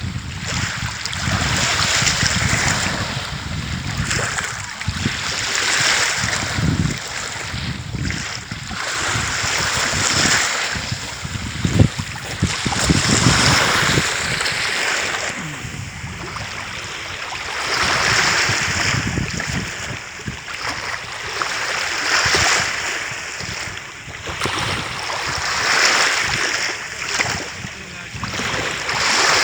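Small waves washing onto the shore of a bay, swelling and falling back every few seconds, with wind gusting on the microphone.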